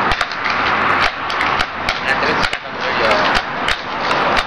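BB guns fired at a steel target: about a dozen sharp cracks and clicks, irregularly spaced, over a steady hiss.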